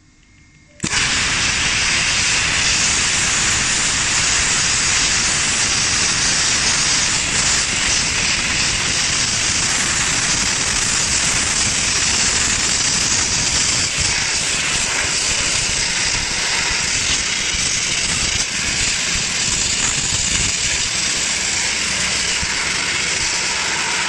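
Dry ice blasting gun firing a jet of compressed air and dry ice against metal: a loud, steady hiss that starts abruptly about a second in when the trigger opens and holds on.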